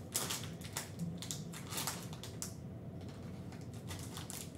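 A plastic-wrapped pack of trading-card sleeves crinkling and crackling in the hands as it is worked open, in irregular clicks several times a second.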